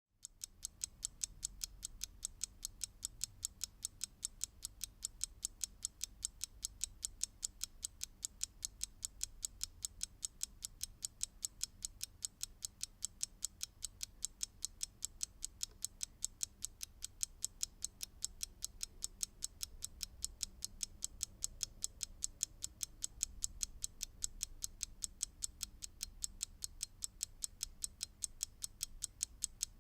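A clock ticking: crisp, evenly spaced ticks, a few to the second, over a faint low background rumble.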